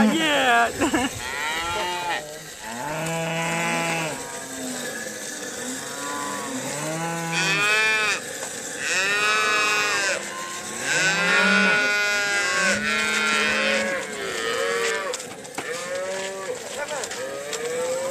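Beef calves bawling again and again, several calls often overlapping, each cry rising and then falling in pitch.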